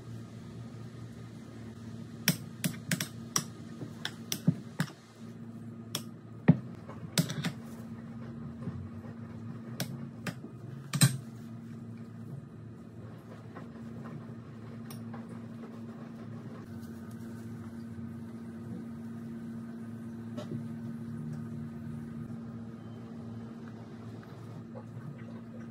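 Sharp clicks and taps of a spoon against glass dishes while grated Parmesan is spooned out, about a dozen of them between two and eleven seconds in, over a steady low hum.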